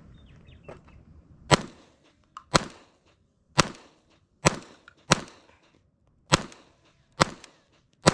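Sig Sauer P322 .22 LR pistol firing eight single shots at an uneven pace, roughly one a second, each a sharp crack with a short tail.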